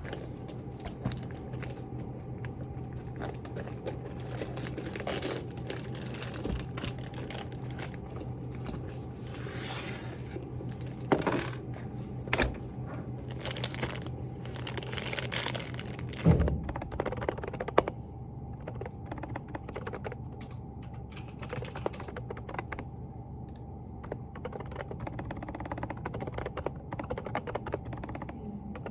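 Steady typing on a Groovestone GV10 mechanical keyboard with hand-lubricated silent Coral 38 g switches, the keystrokes soft and muted, with a few louder knocks in the middle. A steady low room hum runs underneath.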